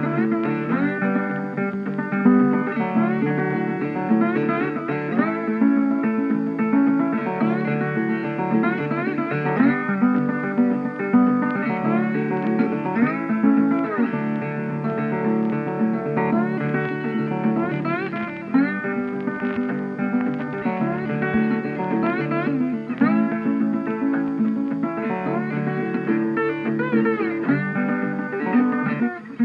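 Background music: guitar-led instrumental with plucked strings, country-style, playing steadily throughout.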